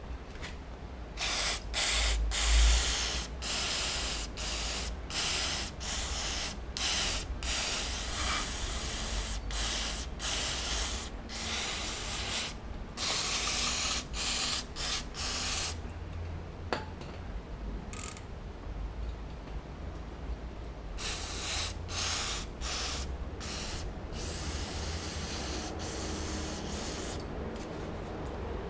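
Cyclo brake parts cleaner aerosol spraying onto a bicycle's rear cassette in many short hissing bursts. After several seconds' pause the bursts start again, and a longer, fainter spray comes near the end.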